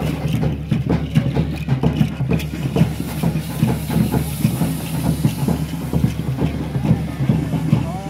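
Fireworks going off: a steady hiss with dense, irregular crackling.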